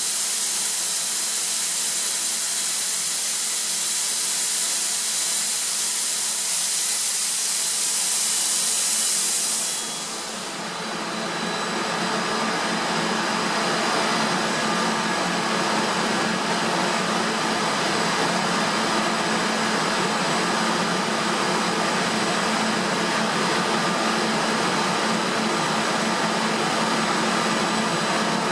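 Atlas Copco ZT 145 two-stage oil-free rotary screw air compressor running: a loud steady hiss of escaping air stops suddenly about ten seconds in, and the machine runs on with a steady hum and whine carrying several steady tones.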